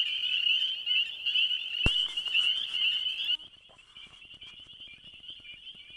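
A dense chorus of frogs calling, many high-pitched chirps and trills massed together. There is a single sharp click about two seconds in. A little past halfway the chorus suddenly drops to a much fainter level and carries on.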